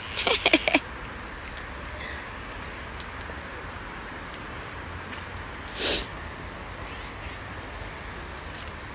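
A steady, high-pitched insect chirring, with a few short voice sounds near the start and another brief one about six seconds in.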